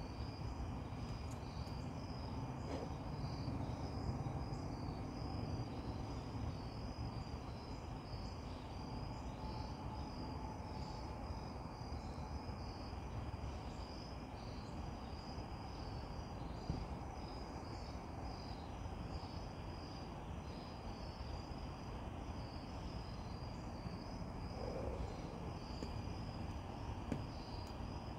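Insects chirping in a steady chorus of evenly repeating pulses, over a low steady background rumble.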